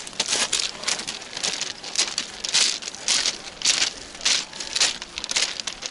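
Footsteps crunching on beach pebbles at a steady walking pace, about two steps a second.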